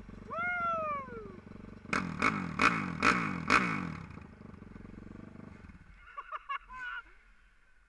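Dirt bike engine running, blipped sharply four or five times about two seconds in, after a drawn-out falling whoop from a person's voice; the low engine sound drops away about six seconds in.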